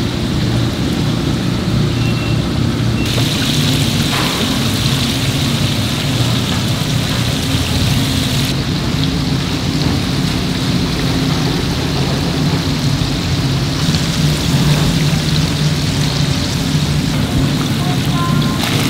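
Oil sizzling steadily in a deep fryer as battered pieces fry, over a low steady hum.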